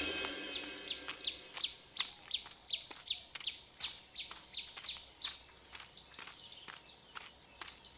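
Footsteps walking at an even pace along a dirt path, about two to three steps a second, with a bird chirping short falling notes over them. Background music fades out at the start.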